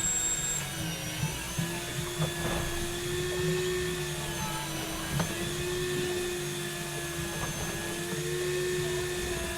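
Electric fishing reel's motor winding line up from deep water: a steady whine whose pitch wavers slightly, with a few light knocks about two and five seconds in.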